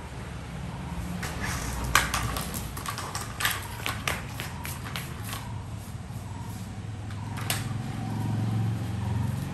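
A German shepherd playing with a plastic toy on a stone-tiled floor: a quick run of sharp clicks and clatters in the first half, and one more about seven and a half seconds in, over a low steady rumble.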